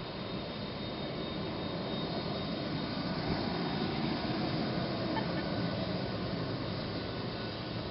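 Boeing 767-200's twin turbofan engines at low power as the airliner taxis past: a steady rushing whine with a thin high tone, growing a little louder midway.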